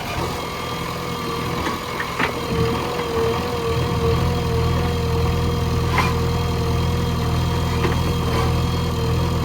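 Backhoe loader's diesel engine running steadily, with a few short knocks about two and six seconds in.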